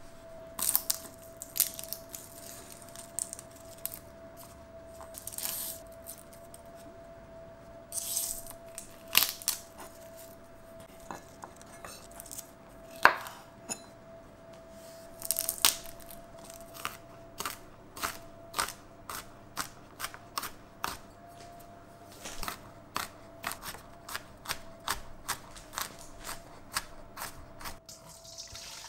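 Kitchen knife working garlic cloves on a bamboo cutting board: scattered clicks and papery crackles as the cloves are peeled, then an even run of knife taps on the board, about two a second, as the garlic is sliced. A faint steady hum sits underneath. Right at the end, tap water starts running into a stainless steel colander.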